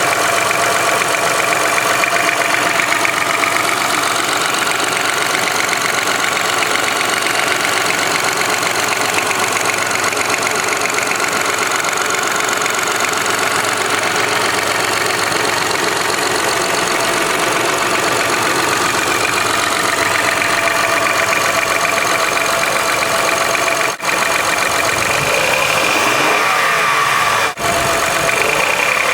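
2005 Honda Accord's 3.0-litre V6 engine running steadily with a rapid ticking/clicking noise, which the owner cannot place between piston slap, valve ticking and injector clicking. The sound dips out very briefly twice near the end.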